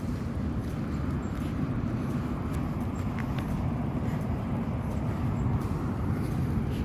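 Steady low rumbling outdoor noise with a few faint clicks.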